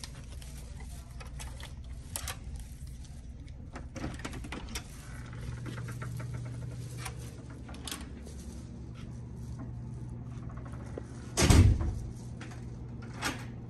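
Scattered clicks and knocks over a steady low hum, with one heavy thump about eleven and a half seconds in.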